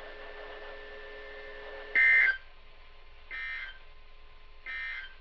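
Three short bursts of warbling two-tone data, about 1.3 seconds apart, the first much louder than the other two: the EAS end-of-message codes sent by a NOAA Weather Radio transmitter to close its required weekly test. A faint steady hum from the radio channel lies under the bursts.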